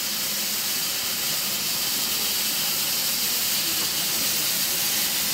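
Steady hiss of steam from a Kerr Stuart Wren-class narrow-gauge saddle-tank steam locomotive, heard close up on its footplate and growing slightly louder.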